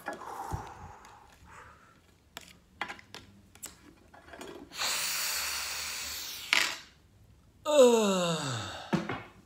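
A man taking a long, deep sniff of a perfume, then letting out a vocal sigh of pleasure that falls steadily in pitch. A few faint taps and handling clicks come before the sniff.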